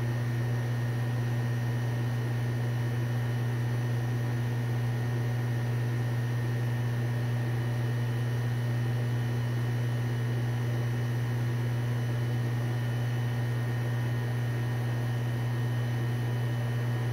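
A steady low hum with a faint hiss underneath, unchanging throughout, from a running motor or electrical appliance in the room.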